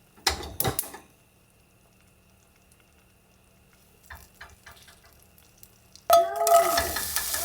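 Kitchen clatter of pots and utensils in the first second, then faint clinks. About six seconds in, food hits a hot pan and starts sizzling loudly.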